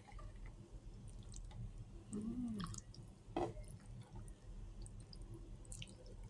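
Thick flour-and-milk sauce being poured from a jug over chicken and potatoes in a glass baking dish: a soft, faint pour with small drips and splats, and a light knock about three and a half seconds in.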